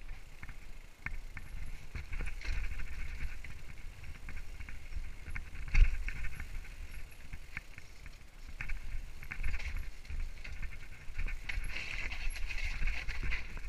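Mountain bike descending a rocky, muddy trail: tyres rumbling over rock and dirt with a constant clatter of chain and frame rattles, and one hard knock about six seconds in.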